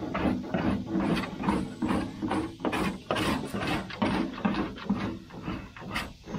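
A hand-held cheese-grater body file (a Surform-type rasp) scraping half-cured body filler on a car body panel in repeated short strokes, shaving the filler down flat before it fully hardens and is sanded.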